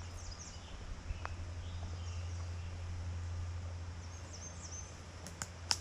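Outdoor ambience: a steady low rumble under faint, short bird chirps with quick pitch slides. There are a few sharp clicks near the end.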